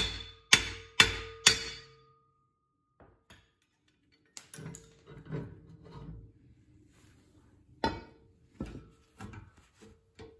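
Hammer blows ringing on steel, about two a second, on a Dana 30 front axle's steering knuckle being taken apart. They stop about two seconds in. Scattered lighter metal knocks and clinks of hand tools follow, with one harder strike later on.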